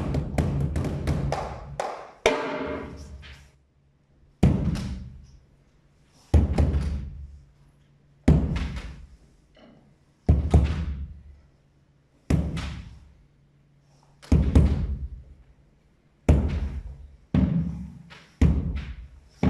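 A deep drum played live: a fast run of strokes, then single strokes about every two seconds, each ringing out and dying away, coming about once a second near the end.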